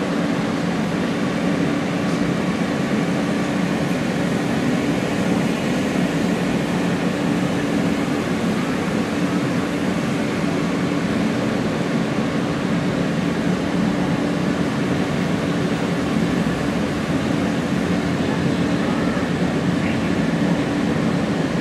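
R160 subway car running steadily along the track, heard from inside the car: an even rumble of wheels and traction motors that does not change.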